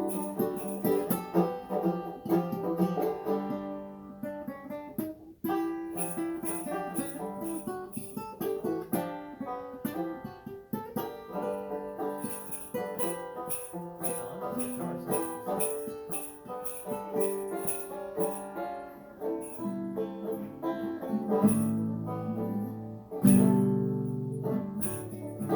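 A banjo and an acoustic guitar playing a tune together, with sleigh bells shaken in a steady rhythm.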